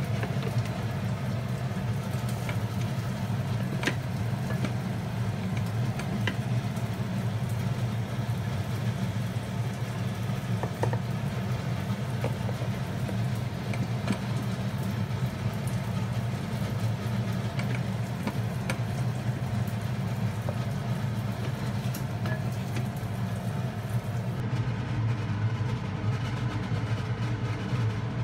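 A steady low machine hum, with a few light clicks of a rice paddle against a rice cooker's inner pot.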